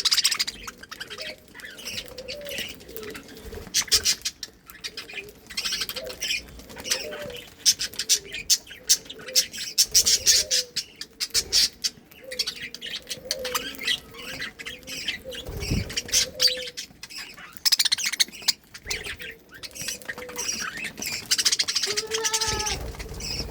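Pet budgerigars chirping and warbling, over a dense run of small clicks and crackles from their beaks nibbling red cabbage leaves.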